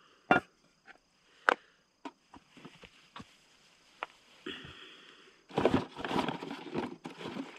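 Camping stove gear being handled: a few sharp clicks and knocks from the pot kit and its parts, then about two seconds of rustling and clatter near the end as a hand rummages in the cardboard packaging box.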